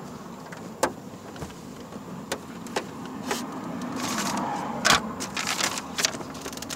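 Scattered light clicks and clatter of small hardware and tools being rummaged through in a search for screws, with a sharper click about five seconds in followed by a quick run of clicks.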